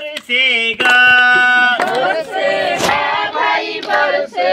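A group of voices, mostly women, singing a Hindi devotional bhajan in unison, with some notes held.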